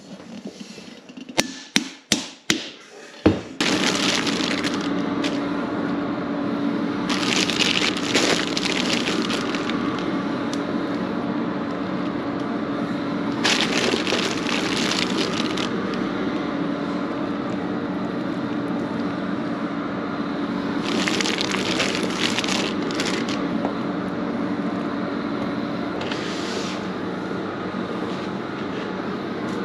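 A steel mixing bowl knocks sharply several times against a steel bench as the flour is tipped out. About three seconds in, a steady machine hum with a low held tone starts abruptly and runs on. Over it come bursts of rustling plastic bag as cherries are scooped out.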